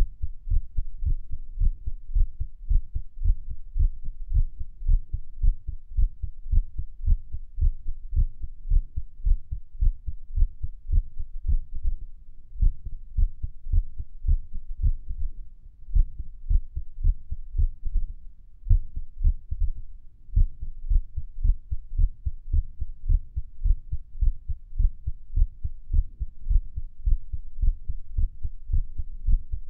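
Human heartbeat picked up against the chest at Erb's point: a steady run of low, dull lub-dub beats, breaking rhythm with a few longer pauses near the middle, as in an irregular heartbeat.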